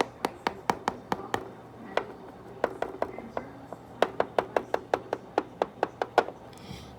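Quick runs of light, sharp taps on a hard surface, about four or five a second, from small plastic Littlest Pet Shop figures being tapped and hopped along. The runs come in three groups with short pauses, and stop shortly before the end.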